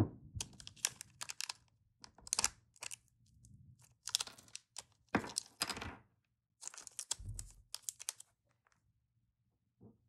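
Crinkling and rustling of a metallised anti-static bag being opened and handled, in bursts that stop about eight seconds in.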